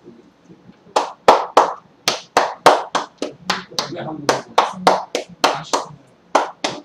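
Percussive massage (tapotement): the masseuse's hands strike the person's clothed back and shoulders in brisk slapping strokes, starting about a second in and repeating about three times a second.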